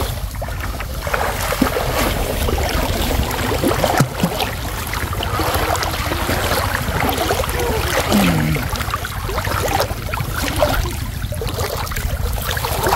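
Shallow canal water sloshing and splashing continuously as people wade and move through it, with many small irregular splashes.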